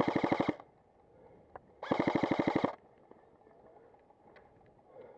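Airsoft gun firing two short full-auto bursts about two seconds apart, each a rapid rattle of roughly a dozen shots a second lasting under a second.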